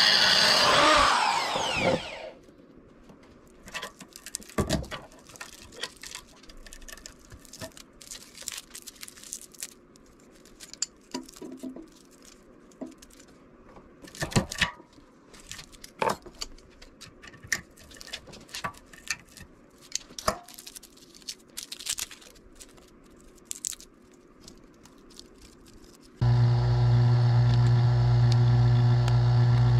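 An angle grinder spinning down with a falling whine, then scattered metal clicks and scrapes as a flat bar pries copper windings out of a window-fan motor's stator held in a vise. About 26 seconds in, a benchtop electric motor machine, a wire stripper, switches on and runs with a loud steady hum.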